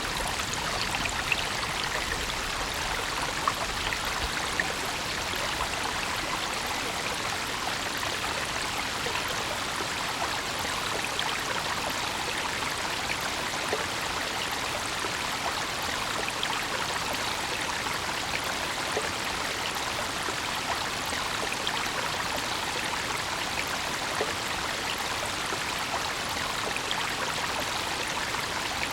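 A brook running steadily, water splashing and trickling over stones.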